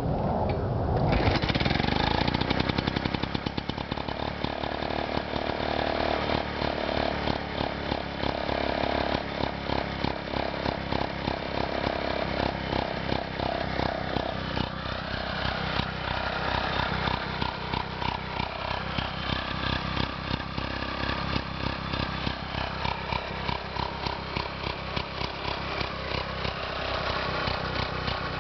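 The small gasoline engine of a 1947 Lawn King reel mower picks up about a second in and runs louder for a couple of seconds. It then settles into a steady, evenly pulsing idle.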